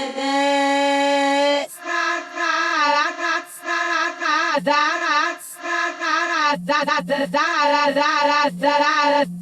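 A time-stretched voice making a weird noise: a long held tone, then a run of wobbling, warbling pitched notes that turn short and choppy near the end.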